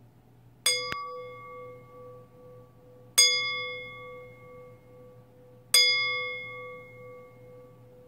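A metal chime struck three times with a wooden striker, about two and a half seconds apart, each strike ringing clearly and slowly fading under the next.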